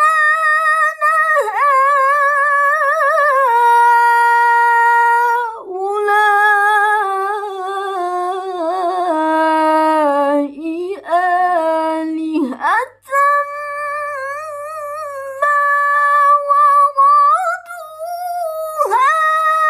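A girl reciting the Quran in the melodic tilawah style, drawing out long ornamented notes with wavering slides. The line starts high, steps down to its lowest around the middle and climbs back up, with short breaths between phrases.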